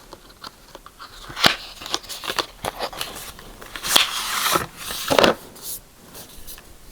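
Eyeshadow palette packaging handled close to the microphone: scattered clicks and crackles, a longer rustle about four seconds in, and a knock just after.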